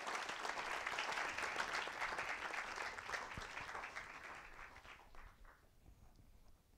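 Audience applauding, steady for about four seconds and then dying away.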